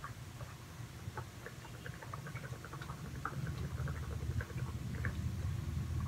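A person gulping soy milk straight from a carton: a run of small, irregular swallowing clicks over a low steady hum.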